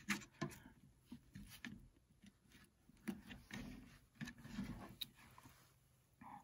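Fillet knife cutting the rib bones out of a trout fillet: faint, scattered short clicks and soft scrapes.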